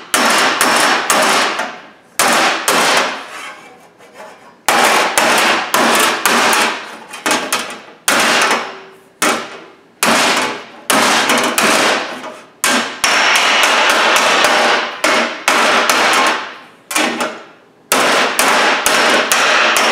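Hand hammer striking 18-gauge sheet steel held over a steel pipe, bending a repair panel around a corner. The metal blows come in quick runs of several a second, each ringing briefly, with short pauses between runs.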